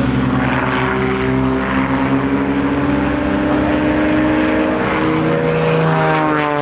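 Propeller-driven aerobatic airplane flying a competition sequence, its engine running with a steady drone. The pitch rises slowly, then drops near the end.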